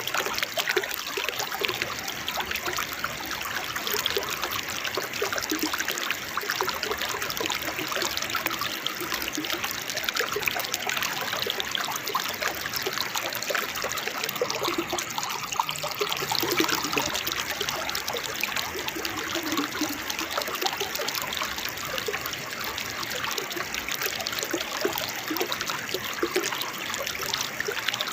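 Waterfall splashing and babbling steadily, a constant rush of running water.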